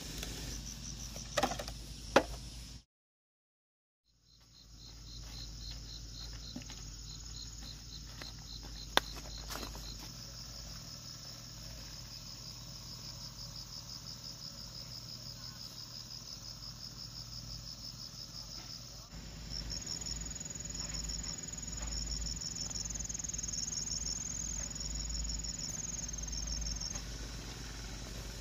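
Insects chirping outdoors in a steady, rapid, high-pitched pulsing, with a second, higher-pitched insect chirping in intermittent runs from about two-thirds of the way through. A couple of sharp clicks and a short dropout come near the start.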